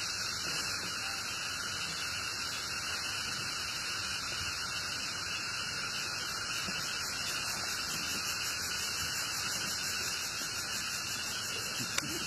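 Steady, even hiss with no rhythm or pitch, and one short click near the end.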